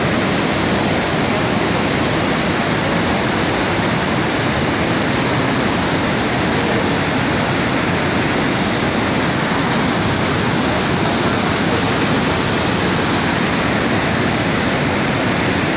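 Loud, steady rush of white water pouring over a rocky waterfall and churning between boulders.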